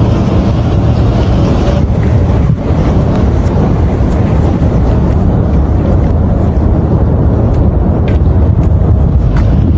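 Strong wind buffeting the microphone, a loud steady low rumble with scattered faint ticks.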